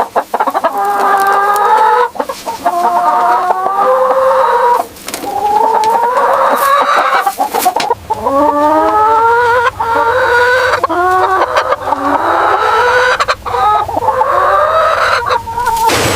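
A flock of chickens clucking and calling, many short overlapping calls that rise and fall in pitch.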